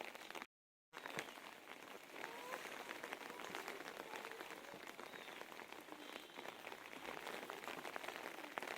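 Steady rain falling, a dense patter of individual drops hitting surfaces. The sound cuts out completely for a moment about half a second in.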